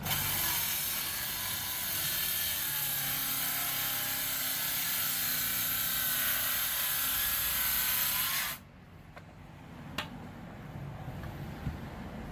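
Milwaukee M18 Fuel 7-1/4 inch cordless circular saw cutting through wood, a loud, steady whine and rasp that stops abruptly about eight and a half seconds in. A couple of faint clicks follow.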